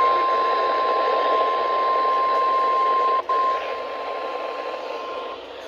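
NOAA Weather Radio warning alarm tone, a single steady 1050 Hz tone over radio static, signalling that a warning is about to be broadcast. It breaks off for an instant about three seconds in, continues a little quieter, and stops just after five seconds in, leaving only static.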